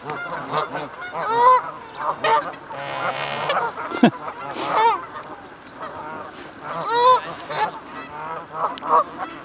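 Geese honking repeatedly, one short call after another with some overlapping.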